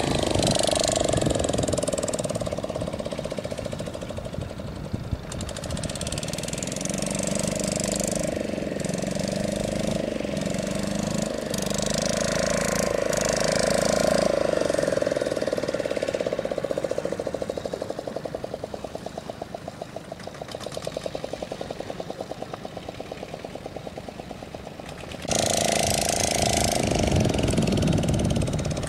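An engine running steadily with a fast, even knocking beat. It runs quieter through the middle and turns suddenly louder about three seconds before the end.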